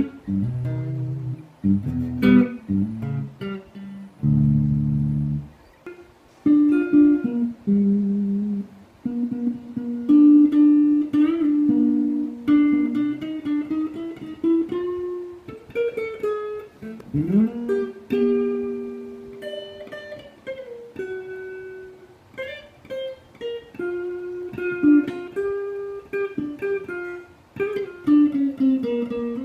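Newly built 'Gazelle' electric guitar played fingerstyle. It opens with low chords, then moves to a slow melody of single ringing notes, with one note sliding up in pitch about seventeen seconds in.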